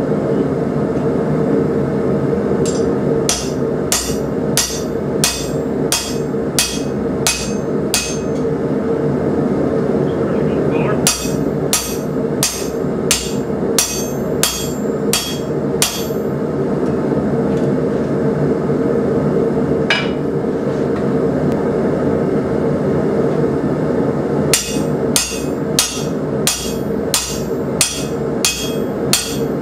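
Hand hammer striking the top die of a spring fuller, necking down red-hot steel bar stock on an anvil: sharp metallic strikes about two a second, in three runs with pauses between them and one lone blow between the second and third runs. A steady rushing noise runs underneath.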